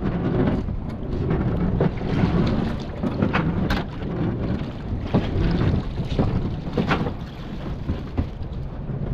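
Seawater pouring and dripping off a wire crab pot full of crabs as it is hauled up out of the water, with scattered knocks of the pot against the boat. Low wind rumble on the microphone underneath.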